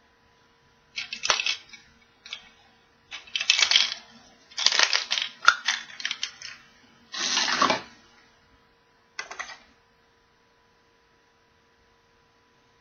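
Plastic surprise-egg capsule being handled and pulled open by hand: several short bursts of plastic clicking, cracking and rattling, stopping about ten seconds in.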